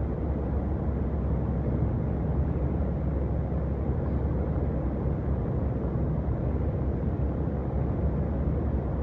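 Steady low drone of a truck's diesel engine and tyres, heard from inside the cab while cruising at motorway speed.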